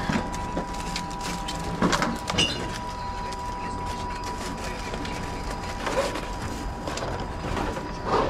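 Container-deposit reverse vending machine running with a steady hum and a low rumble, with a few brief clatters at about two seconds, six seconds and near the end as plastic bottles and cans are handled and fed into it.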